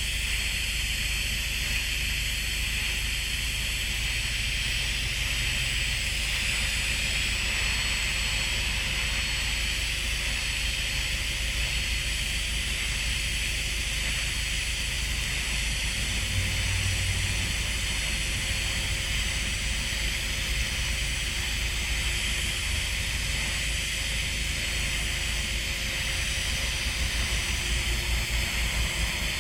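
TIG welding arc on pipe, a steady even hiss that holds unbroken throughout.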